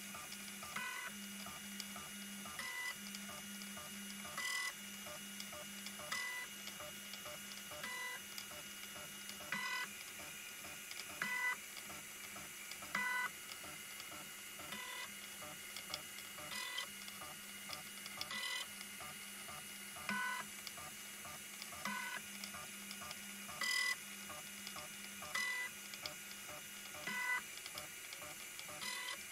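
HICTOP AL13-310 3D printer's stepper motors making short whirring moves at an even pace, about one every 1.7 seconds, as the print head steps between the points of its 25-point auto bed leveling probe. A faint steady hum runs underneath.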